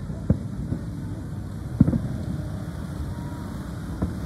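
Aerial firework shells bursting overhead: several sharp booms, the loudest about two seconds in, over a steady low background rumble.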